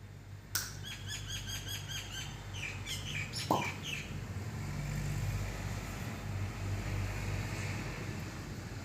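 A small bird chirping a quick run of short, evenly repeated high notes, starting about half a second in and lasting about three seconds, with a sharp click partway through.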